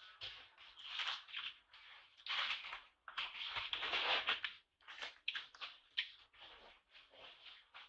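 Short, irregular bursts of rustling and scratching noise, some brief and some lasting up to about a second, with no calls or voices.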